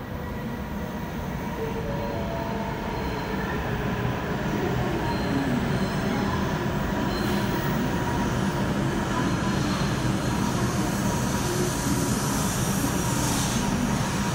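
E7 series Shinkansen train pulling in along the platform, a steady wheel-and-running noise with a few thin whining tones over it. It grows louder over the first few seconds as the cars come alongside, then holds steady.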